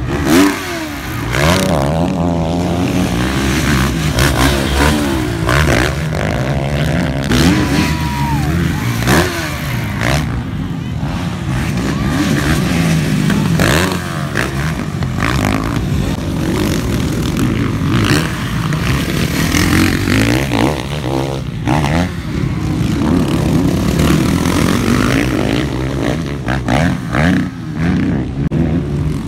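Motocross dirt bikes racing past on a dirt track, their engines revving up and dropping back again and again as they accelerate, shift and pass.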